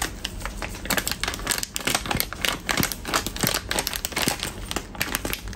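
A plastic packet of bakwan flour crinkling as it is handled and tipped over a bowl, with dense, irregular crackles throughout.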